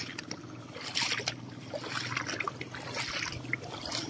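Feet wading through shallow water, with irregular sloshing splashes every second or so.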